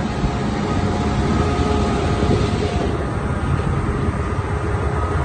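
Kubota rice combine harvester running steadily, a continuous low engine drone with mechanical whine; a higher hiss drops away about halfway through.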